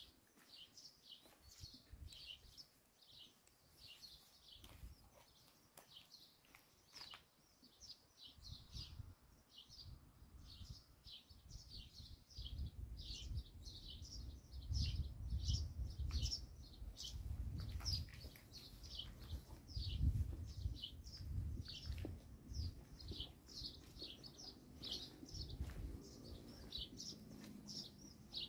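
Small birds chirping continuously in quick, high, repeated chirps, a few each second. Irregular low thumps come in under them, stronger in the second half.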